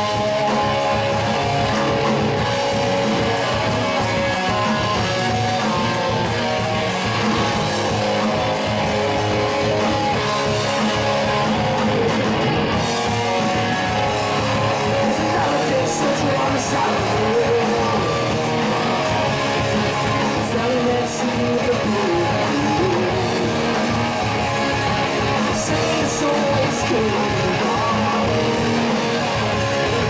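Live rock band playing electric guitars, electric bass and a drum kit, loud and without a break.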